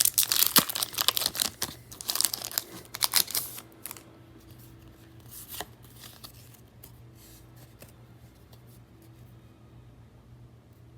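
Pokémon trading card booster pack wrapper being torn open and crinkled, a dense crackling for the first four seconds, then quiet with a single tick about halfway through.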